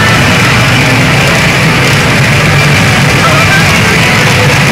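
Midori Don Hanabi de Bongiorno pachinko machine playing its loud, steady rock-style music during its counted '躍動ゲーム' (Yakudō Game) bonus mode.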